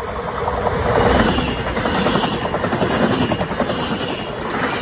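Amtrak Northeast Regional passenger train passing close by at speed on electrified track, a loud rumble of wheels on rail. It builds as the locomotive arrives, peaks about a second in and stays loud as the cars run past.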